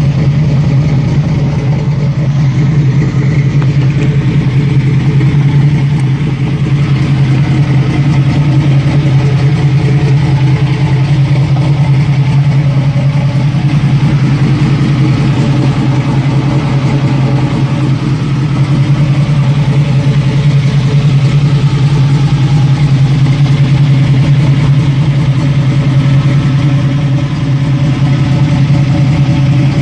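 Chevrolet Camaro Z28's V8 engine idling, a loud, steady low rumble that neither revs up nor changes.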